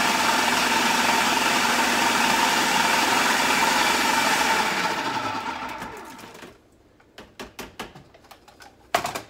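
Electric food processor running steadily as it purées a green marinade, then winding down about five seconds in. A series of plastic clicks and knocks follows as its lid is twisted off, ending in a sharp clack near the end.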